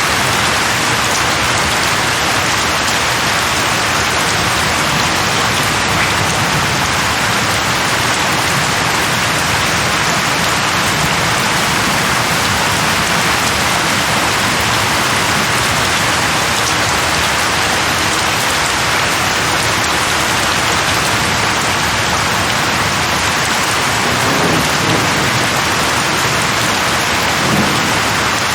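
Steady rain falling, a dense even hiss, with two brief low sounds near the end.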